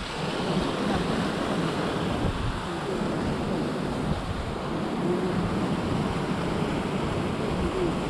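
Steady rush of a swollen, muddy river running far above its normal level after a typhoon, with wind buffeting the microphone.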